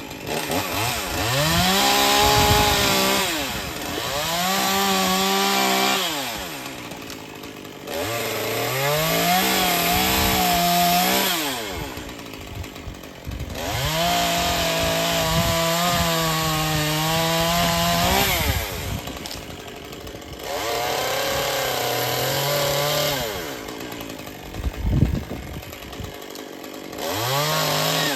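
Gas chainsaw cutting branches off a pine, revving up to full throttle for two to four seconds at a time and dropping back to idle between cuts, about six times over. A sharp knock stands out near the end.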